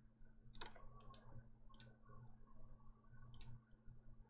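Computer mouse clicks, about five faint sharp clicks spread unevenly over a few seconds, over near-silent room tone with a faint steady low hum.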